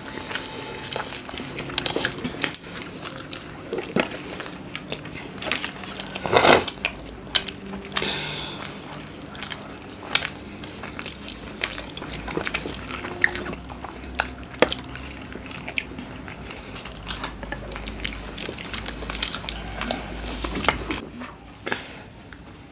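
People eating by hand at close range: chewing and mouth sounds with many small clicks and crackles, and one louder thump about six and a half seconds in.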